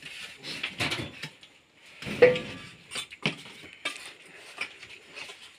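Steel plates and bowls clinking and scraping on a table during a meal, a scatter of light knocks with one louder ringing clink about two seconds in.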